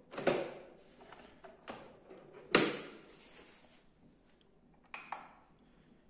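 Plastic clacks of a Philips Senseo pod coffee machine's lid being opened and shut, the loudest a sharp snap about two and a half seconds in, then two quick clicks near the end.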